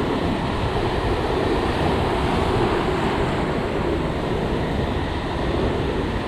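Steady wind on the microphone over the continuous wash of sea waves.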